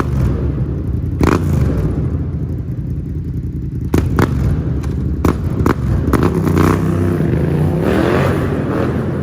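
Vehicle engine running with a deep rumble, then revving, its pitch rising about six to eight seconds in; a few sharp knocks come earlier.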